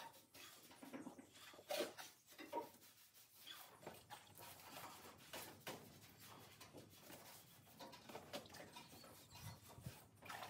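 Faint, irregular rubbing and scratching of a wet sponge wiping down a galvanised steel bulkhead, washing off the salt residue left by acid etching.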